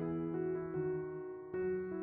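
Background piano music: slow, held keyboard notes, the chord shifting every half second or so.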